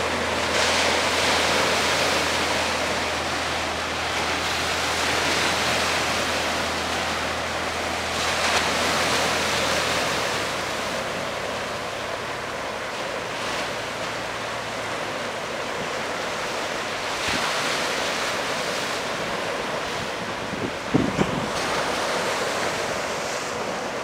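Sea waves breaking on rocks: a continuous wash of surf that swells and eases every few seconds.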